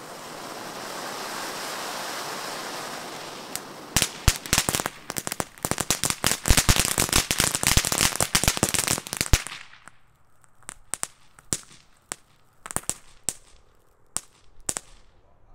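World Class Frog Princess fountain firework hissing as it sprays sparks. About four seconds in it breaks into a dense crackle, which thins after a few seconds to scattered pops.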